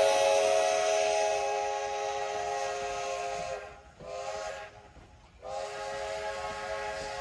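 Steam locomotive whistle (ex-Great Western No. 60) blowing a long, multi-tone blast that fades as the engine pulls away. A little past the middle it cuts off twice, with a short toot between the gaps, then sounds again and holds.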